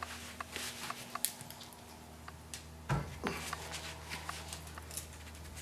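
Rubber scuffs and light knocks as a low-profile run-flat tire is worked by hand over an alloy rim on a tire changer, with one dull thump about three seconds in.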